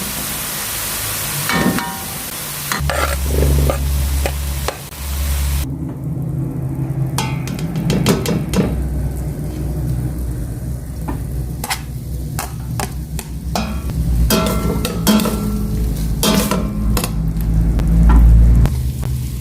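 Minced pork, garlic and onion frying in oil in a pan: a loud sizzle for the first five or six seconds that cuts off suddenly, then a spatula scraping and clacking against the pan as the mixture is stirred, over a steady low hum.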